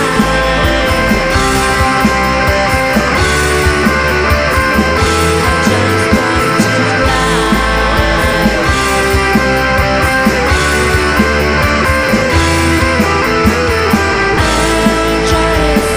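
Rock band recording playing, with guitar over bass and drums keeping a steady beat.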